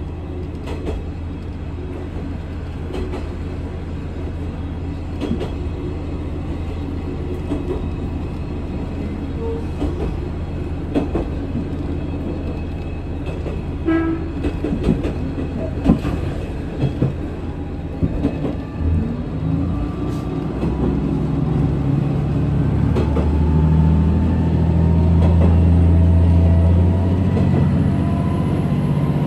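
Diesel railcar running on the rails, a steady low engine drone with a few sharp clicks and knocks from the wheels and track around the middle. The engine drone grows louder in the last third.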